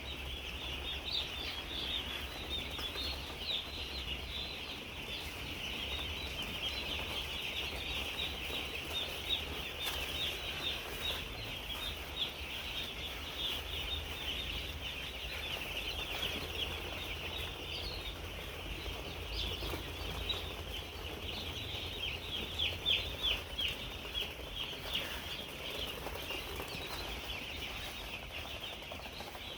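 Large flock of chicks peeping constantly, many overlapping high chirps, over a steady low hum.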